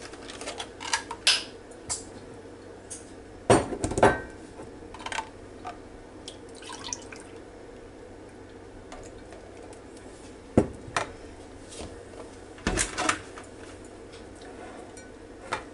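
Milk poured from a plastic gallon jug into a glass measuring cup, with a few sharp knocks and clinks as the jug and cup are handled and set down on a stone countertop.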